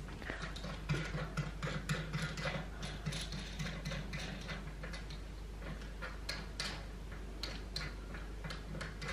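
Rapid, irregular small clicks and ticks from the threaded wall spindle of a black metal pressure-fit stair gate being screwed out by hand to tighten the gate against the wall.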